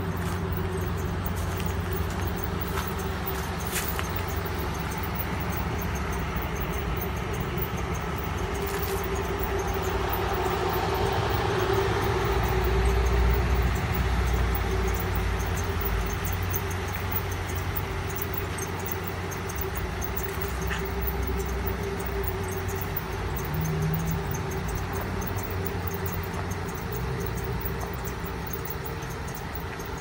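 Toyota Hilux's engine idling steadily, swelling louder for a few seconds near the middle.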